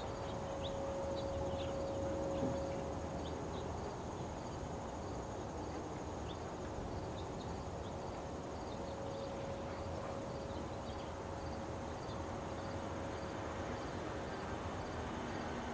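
An unexplained steady hum from the sky, one held mid-pitched tone that fades for a while in the middle and comes back, over crickets chirping in a regular rhythm and a constant high insect trill.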